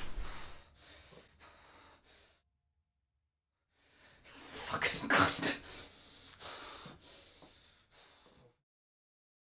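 A man's heavy breathing and gasps: a few faint breaths that die away, a pause, then a loud ragged gasp about five seconds in, followed by weaker breaths tapering off.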